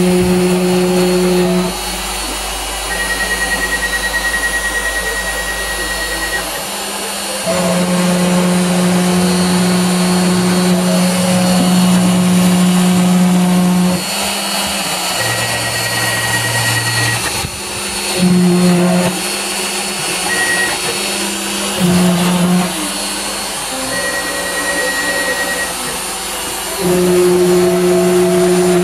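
Home-built CNC router engraving a plywood panel: the rotary-tool spindle runs steadily while the stepper motors hum and whine in steady tones that change pitch and switch on and off every few seconds as the gantry changes direction.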